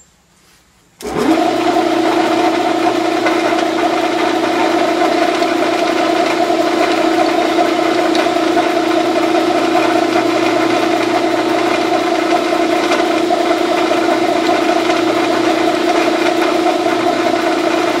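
Small benchtop metal lathe starting up about a second in and then running steadily with a constant hum, its spindle turning a copper rod while the end is center-drilled.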